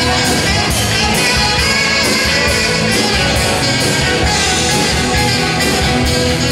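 Live rock band: saxophone playing a lead line over electric guitar and drums with a steady beat.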